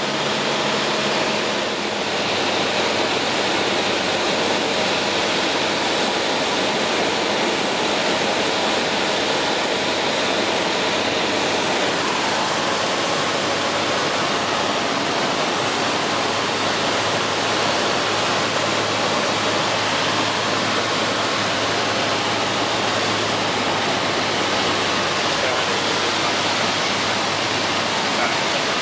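Steady cabin noise of a Cessna 152 light aircraft in flight on approach: the four-cylinder engine's drone blended with rushing airflow.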